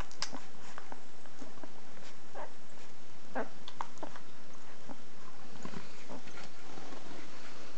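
Newborn puppies nursing at their mother's belly, giving scattered short squeaks and grunts over a faint steady hiss.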